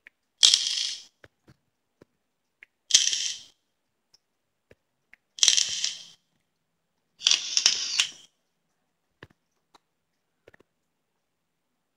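E-cigarette atomizer coil being fired four times in short bursts, each a hissing crackle lasting well under a second to about a second.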